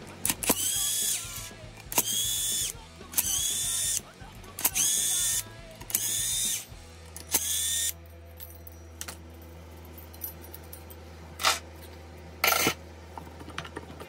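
Cordless impact wrench undoing the brake-disc bolts on a motorcycle front wheel hub: six short bursts of the tool running and hammering, each under a second, in the first half. Two short, sharp knocks follow near the end.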